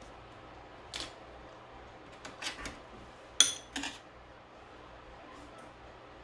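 A metal spoon scooping cut corn off a serving tray: a few soft scrapes, then a sharp ringing clink a little past halfway and a lighter clink just after.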